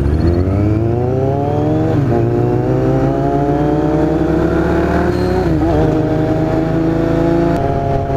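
Motorcycle engine accelerating hard, its pitch rising through the revs, with upshifts about two seconds in and about five and a half seconds in, then easing off near the end.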